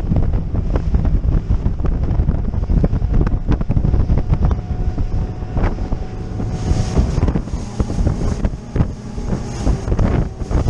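Wind buffeting the microphone on a RIB running at speed through choppy water. Under it are the boat's engine, the hull slapping the waves with frequent knocks, and the hiss of spray.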